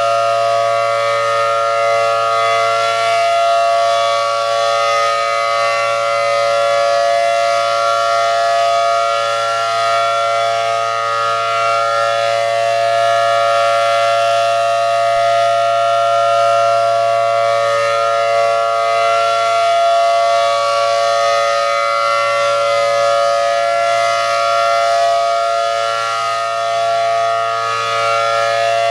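ACA Allertor 125 rotating outdoor warning siren sounding a steady full alert: a loud, unbroken two-tone chord from its 10- and 12-port rotor, holding one pitch, its loudness swelling and easing slightly as the horn turns.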